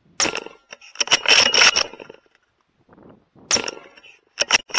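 Metallic clinking and rattling in several short bursts, with a ringing note through them, like metal gear being handled.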